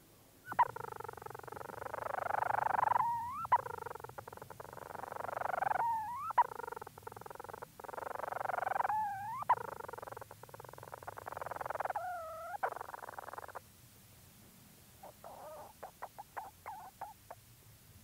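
Leach's storm petrel calling close-up inside its burrow, giving its long purring churr in four stretches of two to three seconds each. Each stretch breaks off in a short squeaky note that rises and falls. Near the end comes a quieter burst of short chattering notes.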